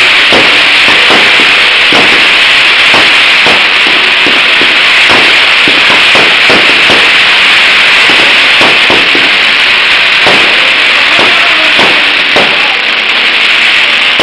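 Fireworks display: a loud, dense crackle of bursting fireworks with many irregular sharper pops and bangs through it.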